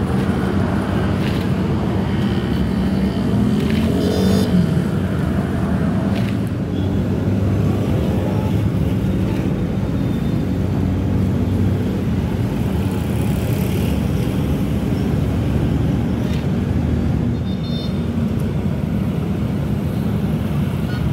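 Steady low rumble of a running engine, unbroken throughout, with a couple of faint short high chirps over it, one about four seconds in and one near the end.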